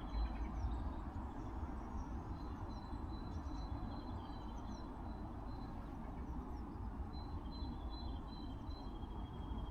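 Small birds chirping faintly in short repeated high phrases over a low steady rumble.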